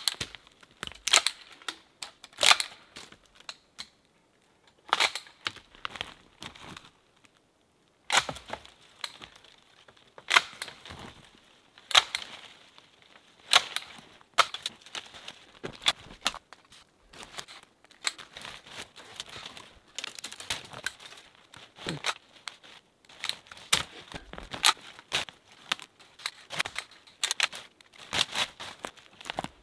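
Long-handled loppers snipping through branches and brush, with sharp snaps every second or two and the rustle and crackle of cut twigs between them.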